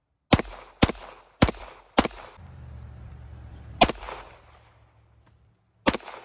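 Six single gunshots from a compact machine pistol of the Mac-10/Mac-11/Uzi/Tec-9 kind, fired semi-automatic: four about half a second apart, then two more after longer pauses. Each shot is sharp, with a short echo.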